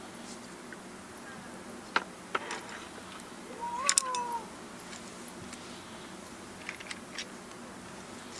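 A cat meows once, a drawn-out call that rises and then falls, about four seconds in. A few light clicks and knocks come before and after it.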